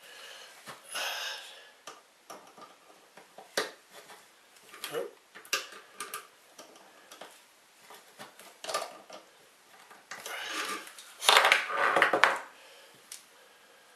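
Metal clinking and scraping of hand tools on nuts and a threaded shaft, as lock nuts are run on and tightened up against the Z-axis pulley. Scattered single clicks, with a longer, louder stretch of rattling about eleven seconds in.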